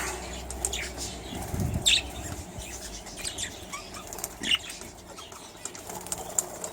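Budgies in an aviary, with wings flapping and short scattered chirps; the loudest flutter comes about two seconds in.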